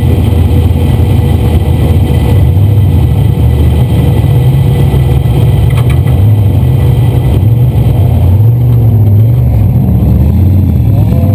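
Sand rail engine running loud and steady under power while driving over dunes, heard from inside the open cab. Its pitch rises and falls a little in the last few seconds.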